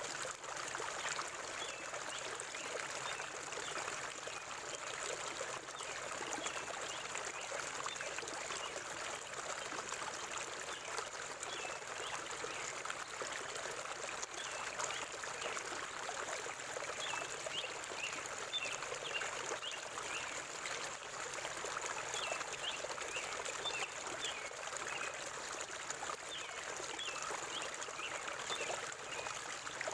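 A forest stream flowing steadily over rocks, an even rush of water. Faint short bird chirps come and go over it, more of them in the second half.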